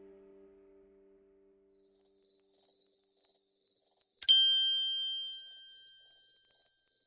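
The tail of background music fades out, then night insects start a steady, pulsing high chirring. About four seconds in, a single sharp bell-like ding rings out and slowly fades, marking a lamp coming on in a village house.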